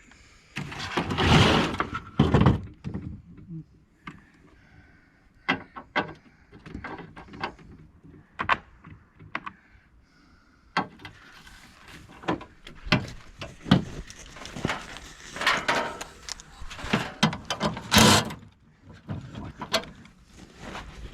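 Irregular knocks, clanks and scraping of hand tools against the metal and plastic parts of an air conditioner being taken apart. Louder rattling bursts come about a second in and again near the end.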